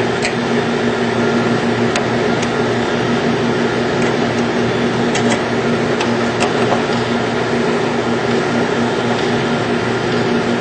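Steady machinery hum, like a running fan unit, with a low drone tone. Scattered sharp clicks from the ratchet as the fan's top bolts are tightened.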